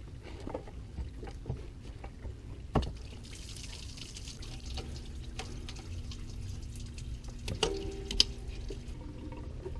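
Engine coolant trickling and splashing out of a disconnected radiator hose, with a few sharp metallic clicks of tools at work.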